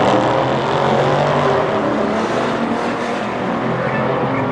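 A Dodge Charger and an Audi sedan at full throttle down a drag strip, their engines running hard and fading as the cars pull away.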